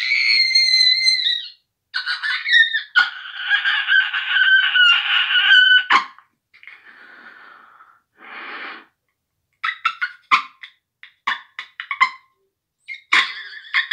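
High, honking notes blown on a small mouth-blown instrument or call held in cupped hands. There are two long held notes in the first six seconds, and a run of short stuttering toots about ten seconds in.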